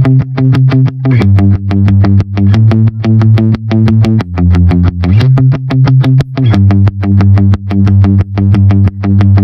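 Background music: a distorted electric guitar and synthesizer track with a steady beat.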